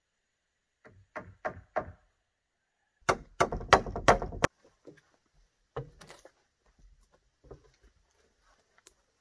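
Hard wooden knocks and blows: three strikes about a second in, a quick run of louder, heavier thuds around the middle, then a few scattered lighter knocks.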